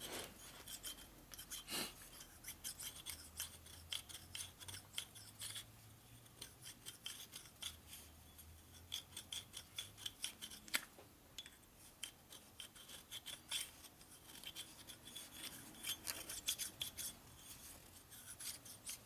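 A fine hand file scraping in quick, irregular strokes on the ring groove of a Harley 103 panhead big-bore piston. The groove is being dressed because detonation collapsed the piston and left the ring too tight to move freely.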